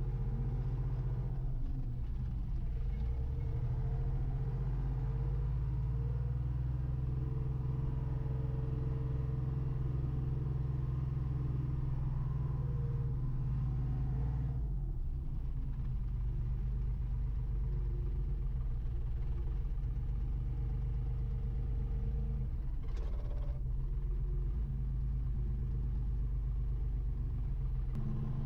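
Wheel loader engine running steadily, heard from inside the cab. Its pitch dips and recovers about halfway through, and there is a brief knock about two-thirds of the way in.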